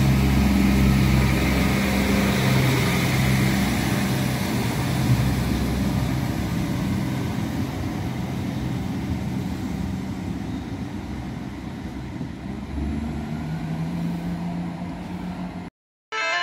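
Irish Rail 22000 Class diesel railcar pulling away, its underfloor diesel engines droning low and steady over wheel and rail noise. The sound fades gradually as the train moves off, then cuts off abruptly near the end.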